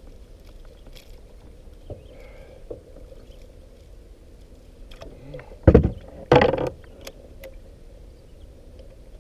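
Handling noises in a kayak while a bass is unhooked and held up: two loud knocks over a steady low background, a short sharp one a little past the middle and a longer rattling scrape just after it.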